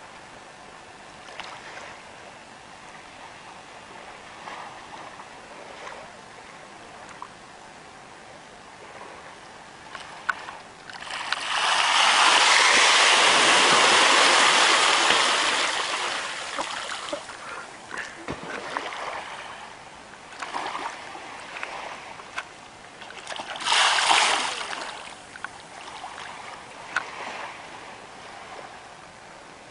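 Water splashing in a fish pool: a loud burst of splashing and churning starts about eleven seconds in and lasts several seconds, and a shorter burst comes about two-thirds of the way through. Under both runs a low, steady hiss of moving water.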